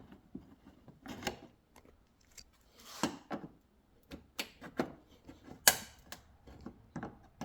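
Scattered clicks and knocks of plastic trim clips being pried and popped out of a car's front bumper cover, with a short, louder scraping noise about three-quarters of the way through.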